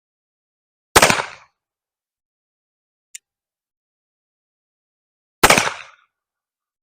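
Two shots from a five-shot .36-calibre Uberti reproduction 1862 Colt Pocket Police percussion revolver firing black powder, about four and a half seconds apart, each dying away over about half a second. A short, faint click comes between them.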